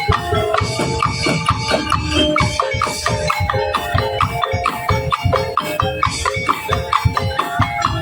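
Tongtek ensemble playing: a fast, steady rhythm of struck bamboo kentongan and drums carrying a pitched melody.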